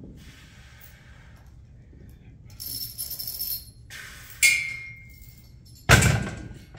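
Metal weight plates on a loaded barbell rattling and jingling, then a sharp clank that rings for most of a second, then a heavy thud near the end as the bar comes down.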